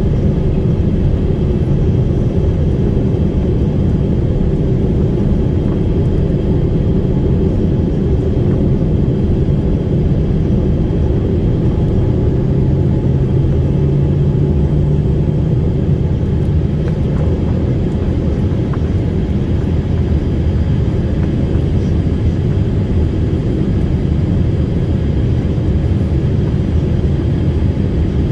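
Airliner cabin noise: engines and airflow make a steady, loud, low rumble, with a low hum standing out for a few seconds in the middle.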